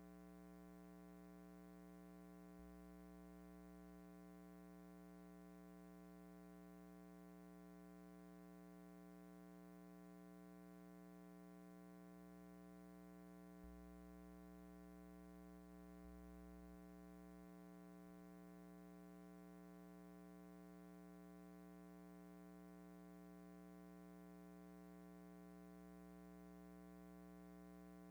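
Near silence with a faint, steady electrical hum that holds one pitch with many overtones throughout; the silent film has no soundtrack of its own.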